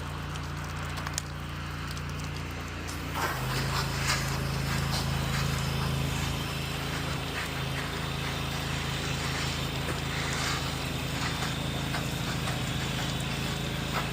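Pressure washer's engine running steadily. About three seconds in it gets louder and a steady hiss joins it, consistent with the wand spraying.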